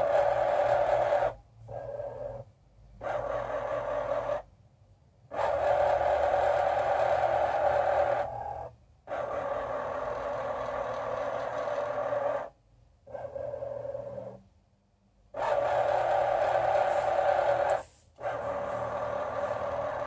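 Excalibur Phantom Force robotic chess board's motorised under-board carriage whirring as it moves pieces by itself. It goes in repeated start-stop runs of about one to three seconds each, with short pauses between them.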